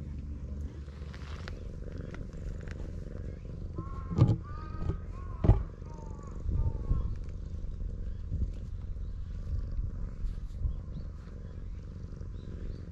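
Stray tabby cat purring close up as it is stroked, a steady low rumble. Two sharp knocks come near the middle, along with a few bird calls.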